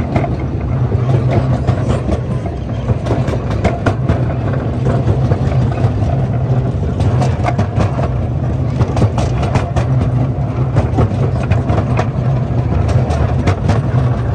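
Miniature ride-on train rolling along its track: a steady low rumble with many short clicks and clacks from the wheels on the rails.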